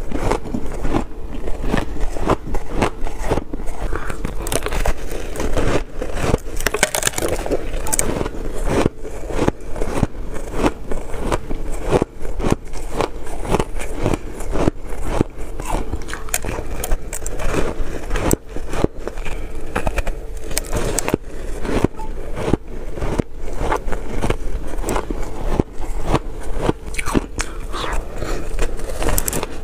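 Shaved blue ice being bitten and chewed close to a clip-on microphone: a dense, uneven run of crisp crunches and cracks.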